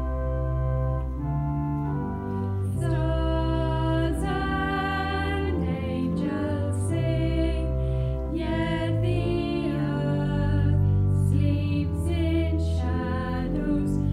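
Church organ playing a hymn accompaniment, held chords alone for the first couple of seconds, then two female voices come in singing the verse over it about three seconds in.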